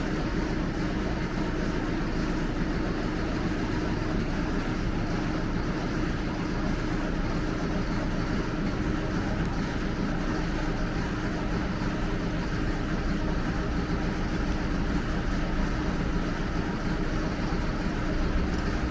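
Steady mechanical whir and hum, with a few low drone tones and a constant hiss, holding level throughout.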